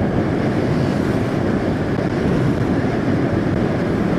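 Steady wind rush over the microphone mixed with engine and tyre noise from a vehicle driving down a road.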